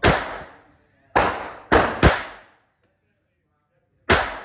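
.22 LR semi-automatic pistol firing five single shots, each a sharp crack followed by a short echo off the walls of an indoor range. The shots come irregularly: one, another about a second later, a quick pair, then a last one near the end.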